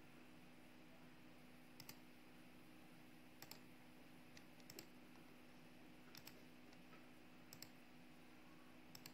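Faint computer mouse clicks, about six in all at roughly even intervals, each a quick double tick of press and release, over a steady low hum.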